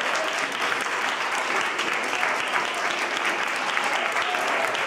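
A small group of people applauding steadily, with a few voices cheering over the clapping.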